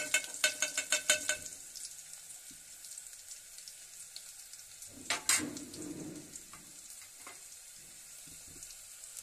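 Onion, garlic and cumin frying in hot mustard oil, a steady sizzle, while a metal ladle scrapes and taps against the aluminium pot: a quick run of clicks in the first second and a half and one louder knock about five seconds in.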